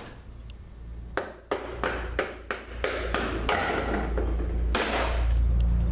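Metal parts of a ZF 5HP24 automatic transmission clinking and knocking as the last of them are pulled out of the case during teardown: a run of sharp taps and knocks, turning into a denser, continuous rattle in the second half.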